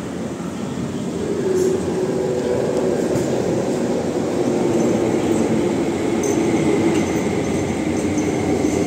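Hong Kong MTR Tuen Ma Line train running, heard from inside the carriage: a steady rumble with a wavering droning tone that grows louder about a second in, and a few faint ticks.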